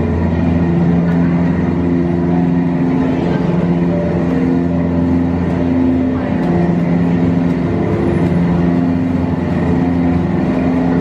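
A Jungle Cruise boat's motor running steadily, under sustained low tones that shift pitch every second or two.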